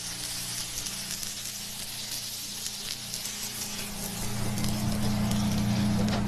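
Burger patties with melted cheese and bacon sizzling on a hot flat-top griddle, a steady crackling hiss. About four seconds in, a steady low hum comes in and grows louder.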